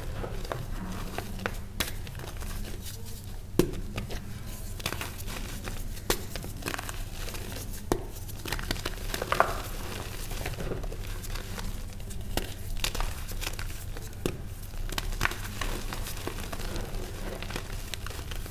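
Reformed gym chalk being crushed and crumbled by hand into loose chalk powder: dry crunching and crackling with irregular sharp snaps as the chunks break.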